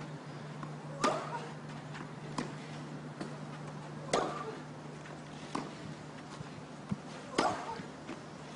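Tennis racket strikes in a baseline rally on a clay court: five hits roughly every one and a half seconds, alternately louder and fainter as the ball goes from one player to the other, with a steady low hum underneath.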